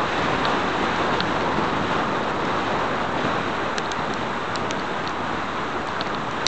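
Steady rushing wind and tyre noise from a bicycle coasting fast downhill on wet asphalt, with a few scattered light ticks.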